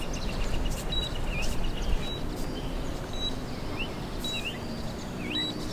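A drone's handheld remote controller beeping, short high beeps about once a second, as it signals the return-home flight. Wind rumbles on the microphone underneath, with a few bird chirps.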